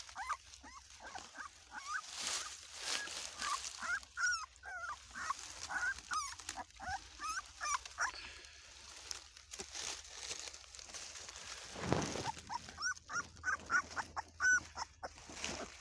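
Newborn Bully Kutta puppies whimpering, with many short, high squeaky cries in quick succession and a rustle of dry-leaf bedding as they are handled.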